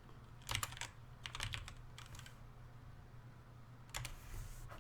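Computer keyboard typing in short runs of keystrokes: one run about half a second in, a longer one around one and a half to two seconds, and another near the end.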